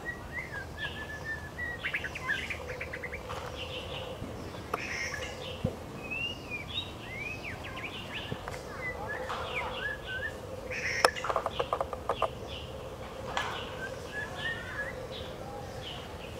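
White-rumped shama singing: a varied string of short whistled phrases, sliding notes and chirps, with quick rattling trills about two seconds in and again about eleven seconds in, over a faint steady hum.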